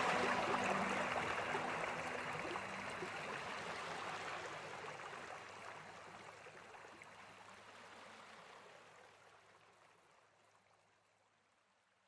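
Rushing water from a waterfall, a steady hiss that fades gradually away to near silence.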